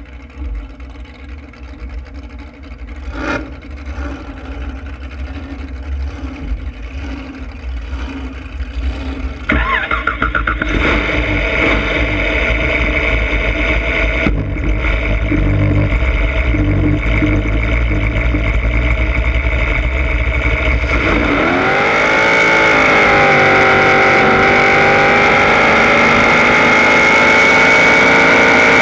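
Big-block Chevy V8 of a Hondo drag boat, heard onboard: running at low speed with a rough rumble, getting louder about a third of the way in, then about two-thirds of the way in the engine note climbs sharply and holds high and steady at full throttle on a short drag pass.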